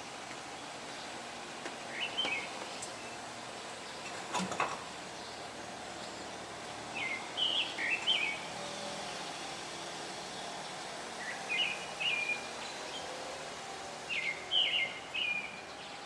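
Pale thrush singing: four short phrases of two or three clear, pitch-bending notes, a few seconds apart, over a steady background hum. A single sharp knock about four and a half seconds in.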